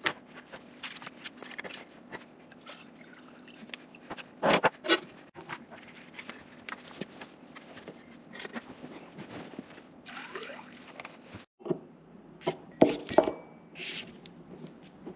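Irregular clicks, knocks and scrapes of parts being handled, with louder knocks about four and a half seconds in and again near thirteen seconds.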